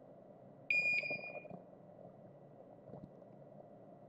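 Soldering station's electronic beep, one clear tone lasting under a second about a second in, as the iron tip's set temperature is turned down to 550. A faint steady background hum lies under it, with a couple of tiny clicks later.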